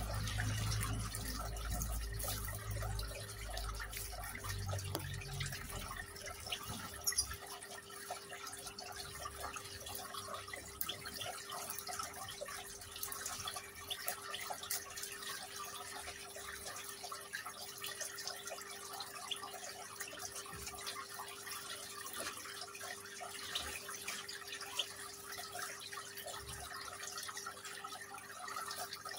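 Water trickling and dripping in a small decorative rock fountain, over a faint steady hum. A low rumble runs through the first few seconds.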